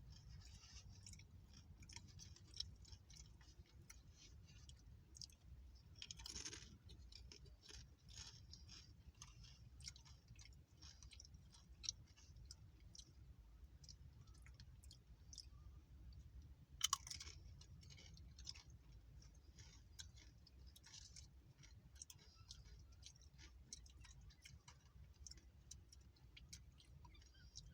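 Faint chewing of crunchy food close to the microphone: a steady run of small crunches and mouth clicks, with two louder crunches about six seconds in and about seventeen seconds in.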